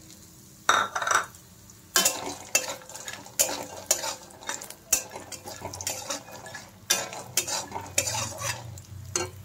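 Flat metal spatula stirring and scraping sun-dried lentil dumplings (bori) around a metal kadhai in irregular strokes, with a light sizzle of the dumplings frying in oil.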